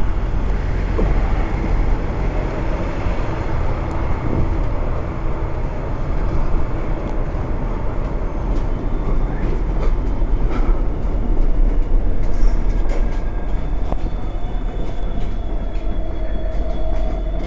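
New York City subway train running in the station below the street, a steady low rumble with a faint steady tone coming in during the last few seconds.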